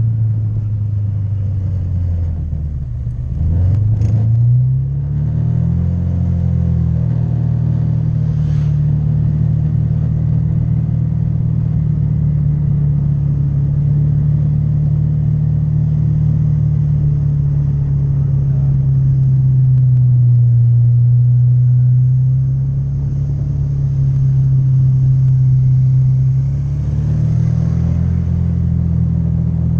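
Honda Vario 150 scooter's single-cylinder engine running while riding. It eases off about three seconds in and picks up again, then holds a fairly steady pitch with small rises and falls.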